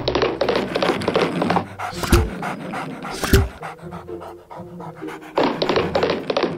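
Cartoon puppy panting rapidly, with two low thumps about two and three seconds in.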